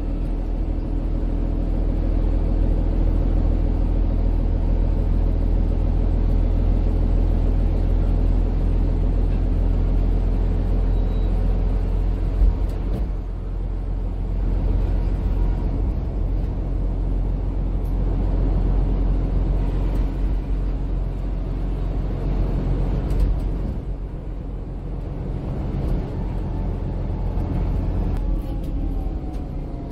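Cabin ride noise inside a MAN Lion's City 12C EfficientHybrid city bus under way: a deep rumble of diesel engine and road with a steady drone over it. There is a single knock about twelve seconds in, and near the end the drone slides down in pitch as the bus slows.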